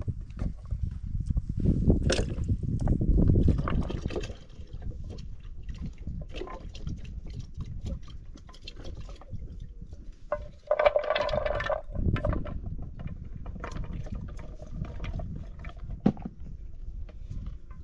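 Liquid poured from an aluminium pot into a plastic jug, splashing loudest in the first few seconds and then trickling more lightly. A brief ringing sound about eleven seconds in.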